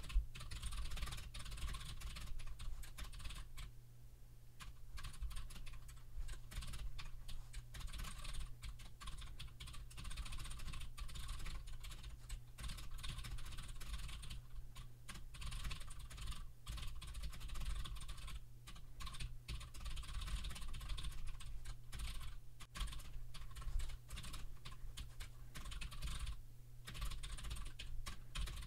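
Typing on a computer keyboard: a fast, continuous run of keystrokes, pausing briefly about four seconds in and again near the end.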